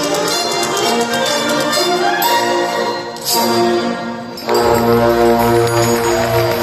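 A concert wind band playing the closing bars of a piece: a fast passage over rapid clicks, a sharp accent about three seconds in, then a held final chord with low brass underneath.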